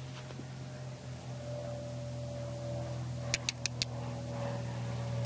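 A steady machine hum with a constant pitch, broken a little past the middle by four quick sharp clicks in about half a second.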